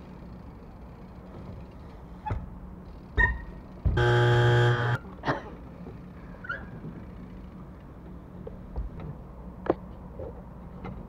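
A loud, flat buzzer sound, about a second long and cut off sharply, of the game-show kind used to mark a missed trick and a letter given. A few sharp knocks come just before and after it.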